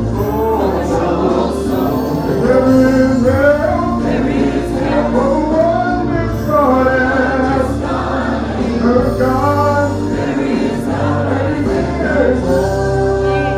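A gospel choir singing with instruments, low held notes sustained beneath the voices.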